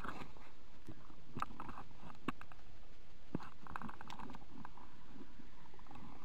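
Footsteps squelching over wet, muddy grass, with clothing and gear rustling and a few sharp clicks.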